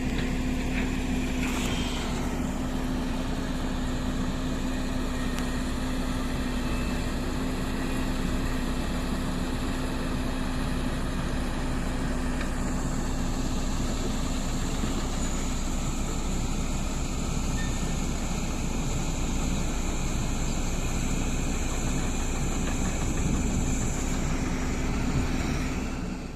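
An engine running steadily, with a constant low hum and a steady droning tone.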